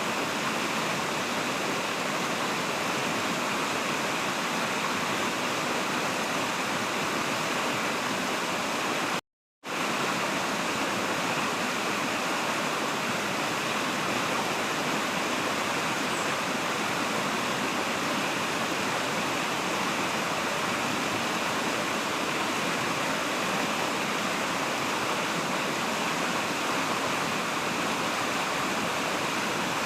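Steady rushing water of a waterfall and its stream, broken once about nine seconds in by a half-second gap of silence.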